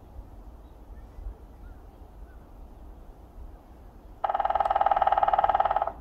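Grey-headed woodpecker drumming with its beak on a dead tree trunk: one loud, very fast, even drumroll of about a second and a half to two seconds, starting about four seconds in and stopping sharply, the hollow wood ringing under the strikes.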